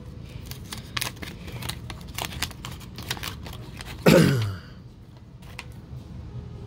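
Wax-paper wrapper of a card pack crinkling and tearing as it is opened by hand, a string of sharp rustles and crackles. About four seconds in comes one short vocal sound that falls in pitch, the loudest thing heard, then softer rustling of cards.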